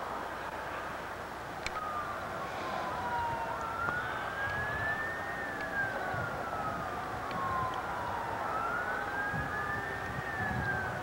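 An emergency-vehicle siren in a slow wail, starting about two seconds in and rising and falling in pitch about every five seconds, over a steady background noise.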